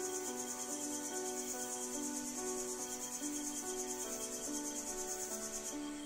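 High-pitched insect trill, a rapid even pulsing, over a soft melody of held notes; the trill stops near the end.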